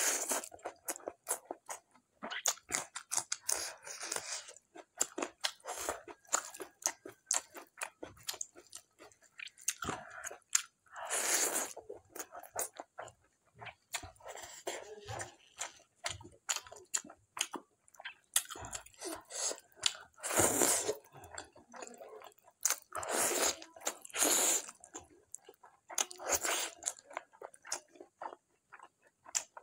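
A person eating mutton curry by hand with many short wet chewing and biting sounds. A few longer, louder mouth sounds come near the middle and toward the end.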